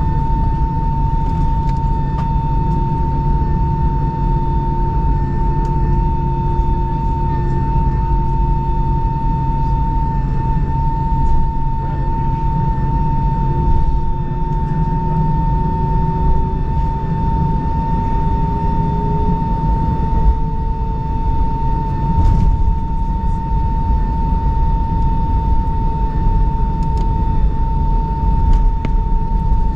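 Airbus A319 cabin noise while taxiing at idle: a steady high whine over a low rumble. A second, lower tone rises slowly in pitch around the middle.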